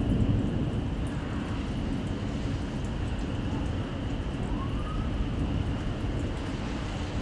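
Severe thunderstorm noise: a steady low rumble of wind buffeting the microphone, with rain falling.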